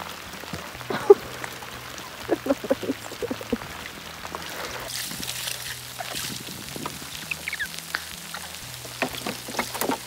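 Steady rain falling on lake water, with squelching and splashing as feet work through soft mud and shallow water beside a canoe. A sharp knock about a second in, and a run of short wet sucking sounds between about two and four seconds in.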